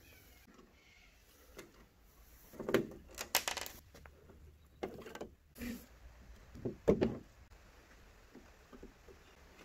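Handling noises: four short bouts of knocks and scrapes as hard objects are moved and set down, the loudest near the end.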